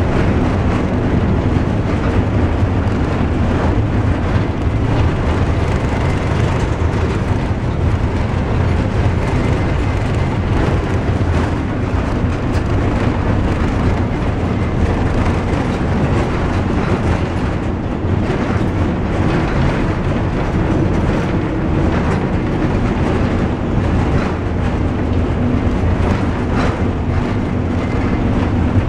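Overland truck on the move, heard from on board: a steady low rumble of engine and road noise that holds without a break.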